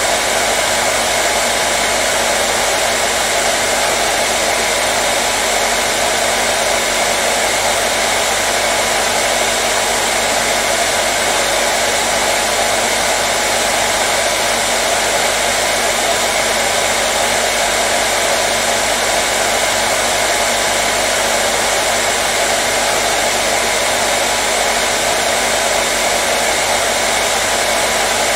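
Hair dryer running continuously at a steady pitch and level, a loud even rush of air with a faint steady hum of the motor underneath.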